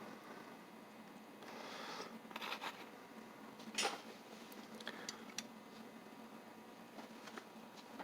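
Light metallic clicks and clinks of small cast brass parts inside an antique mortise lock being handled and worked loose, a handful of separate ticks with the sharpest about four seconds in.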